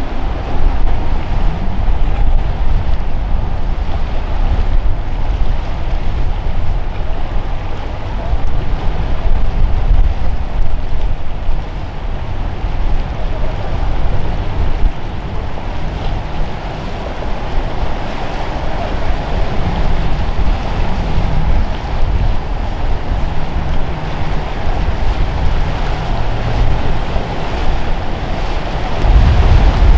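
Boats running through rough inlet water: engine noise and the rush of waves and wake blend into a steady roar, with strong wind buffeting the microphone.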